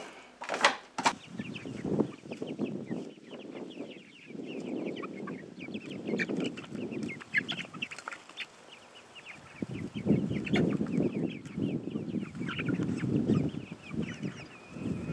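A flock of hens clucking and chattering, many short calls overlapping, as they crowd in to be fed. Near the start, a few sharp knocks and scrapes of a spatula on foil pans.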